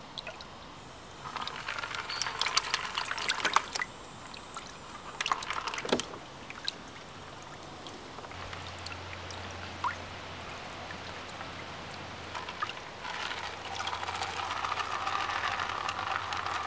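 Water sloshing and splashing as a plastic gold pan is swirled and dipped in a tub of water, washing the sediment from a tile-saw rock cut to look for gold. The splashing comes in spells, and a faint steady low hum sets in about halfway through.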